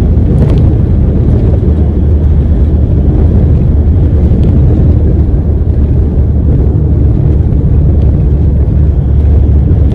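Steady, loud low rumble of a truck driving at highway speed: engine drone mixed with road noise.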